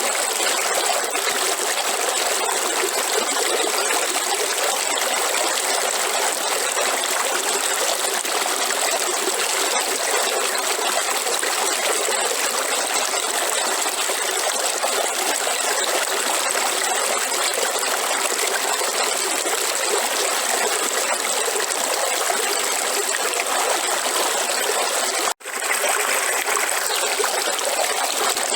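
River water flowing and trickling steadily, with an even rushing hiss. The sound drops out for an instant near the end.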